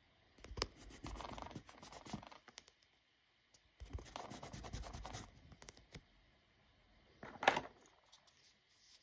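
Winsor & Newton kneadable putty eraser rubbed over drawing paper in two spells of about two seconds each, then a short louder scrape near the end.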